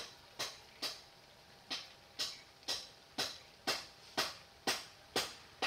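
A soft tick repeating about twice a second, each one sharp at the start and fading quickly, with one beat missing early on.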